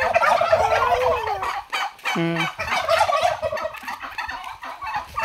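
A flock of domestic turkeys gobbling, several rapid warbling gobbles overlapping, with a short break and a brief lower call about two seconds in.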